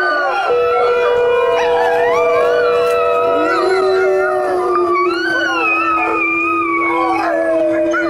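Several dogs howling together, long overlapping howls at different pitches that rise, fall and are held for seconds.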